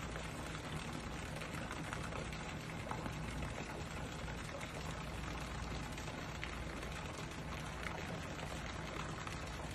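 Tiered stone fountain's water splashing and running steadily into its pool, with a low steady hum underneath.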